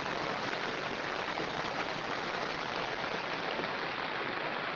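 Heavy rain falling in a downpour, a steady even hiss.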